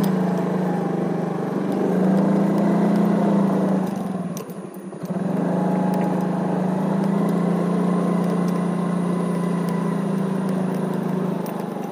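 Motor scooter's small engine running steadily while riding along. The engine sound drops away briefly about four to five seconds in, then picks up again.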